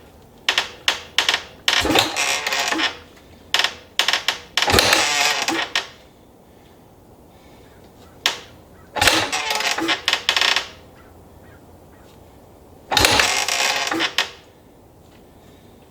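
Maico 660 two-stroke single being kicked over with the choke on as priming kicks: four kicks, each a clatter of the kickstarter and the engine spinning over for about a second, with sharp clicks of the lever between them. The engine does not fire.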